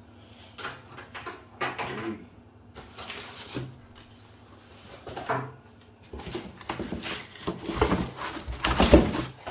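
Plastic tool parts and packaging being handled: irregular rustling and knocking, busier in the second half, with the loudest thumps near the end.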